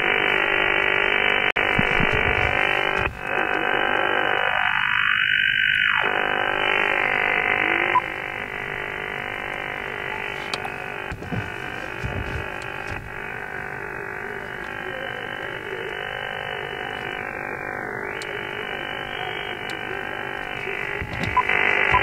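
Receiver audio from an Icom IC-7200 HF transceiver on the 20 m band: hiss with a garbled, wavering signal, cut off sharply at the top by the narrow sideband filter. It drops in level about eight seconds in, and its upper edge dips now and then as the passband-tuning knob is turned.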